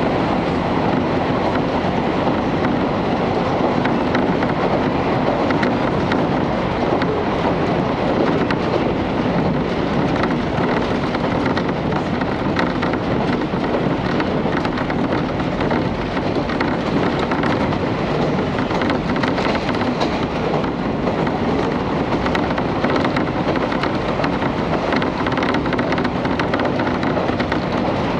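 Steady running noise inside a KiHa 31 diesel railcar under way: the diesel engine and the wheels on the rails make a constant loud rumble.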